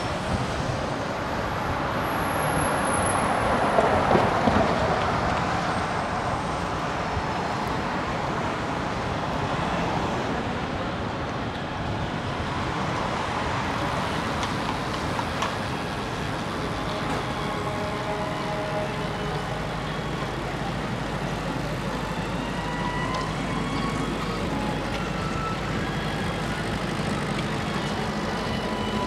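Steady city street traffic noise heard from a moving bicycle, with a vehicle passing louder about two to five seconds in.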